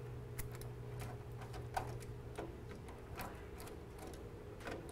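Screwdriver working the wire terminal screws of circuit breakers: faint, scattered clicks and ticks over a steady low hum.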